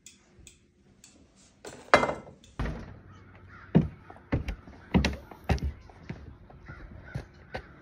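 Crows cawing several times: short harsh calls, the loudest about two seconds in, with a few sharp clicks or knocks between them.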